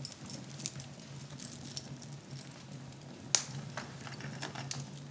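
Wood fire crackling in a fireplace: scattered small pops and snaps, with one sharp, much louder pop a little over three seconds in, over a steady low hum.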